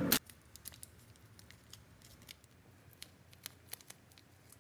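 Faint kitchen prep sounds: a string of scattered light clicks and snips as ramen packets and a sauce sachet are cut open and handled, after one sharp click at the start.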